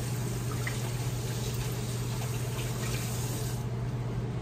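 Kitchen tap running water into a sink, with a steady hiss that shuts off about three and a half seconds in. A steady low hum runs underneath throughout.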